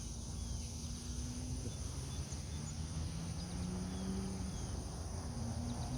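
Outdoor ambience: a steady, high-pitched drone of insects such as crickets, over a constant low rumble, with a few faint, short bird chirps.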